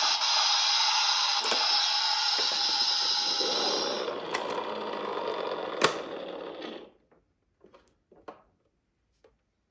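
Toy car's gears and wheels whirring as it runs, with a few sharp clicks, winding down and stopping about seven seconds in. A few faint light clicks follow.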